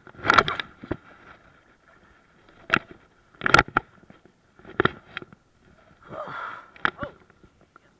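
Water splashing as a false albacore held by the tail is let go beside a kayak: a run of sharp splashes and knocks, the loudest about half a second in and about three and a half seconds in.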